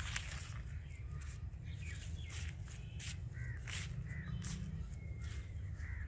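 Footsteps through grass and vegetation, about two steps a second, over a steady low rumble, with a few short bird calls.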